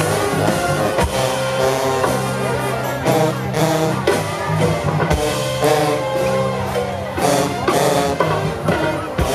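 Live brass band playing a New Orleans second-line style jazz groove: trombones and trumpets playing horn lines over a sousaphone bass line and drums.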